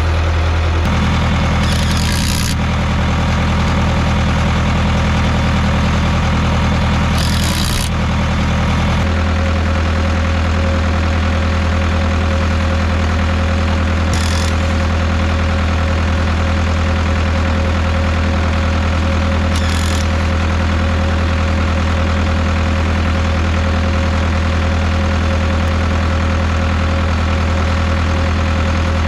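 Caterpillar 3304 four-cylinder diesel of a Cat D3C bulldozer idling steadily, its note shifting slightly about a second in and again about nine seconds in. A few brief hisses sound over it.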